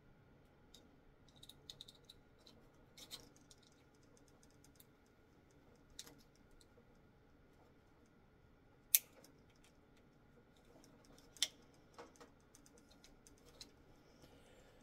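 Faint, scattered small clicks and scratches of a small screwdriver and wires being worked out of push-in wire terminals on a tanning bed's lamp holders. Two sharper clicks stand out, a little past the middle and about three-quarters through.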